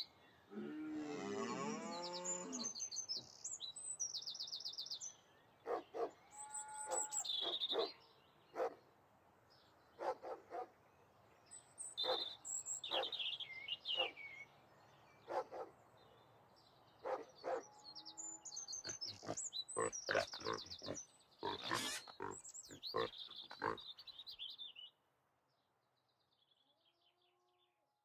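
A cow moos once near the start, then birds chirp in many short calls, which stop about three seconds before the end, leaving near silence.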